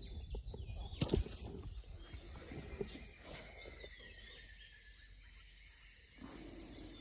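Quiet outdoor ambience: a steady high insect buzz with birds chirping, and a single sharp knock about a second in.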